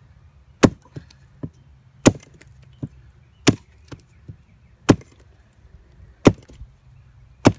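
Hatchet chopping a point onto the end of a green-wood stake held against a log: six sharp chops about every second and a half, with a few lighter knocks between them.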